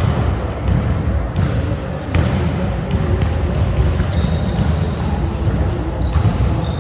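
Basketballs bouncing on a hardwood gym floor, with sneakers squeaking several times in the second half as players run up the court.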